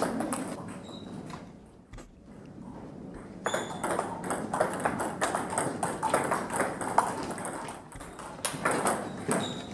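Table tennis rally: the ball clicking off the bats and the table in quick succession, starting about three and a half seconds in after a quieter pause.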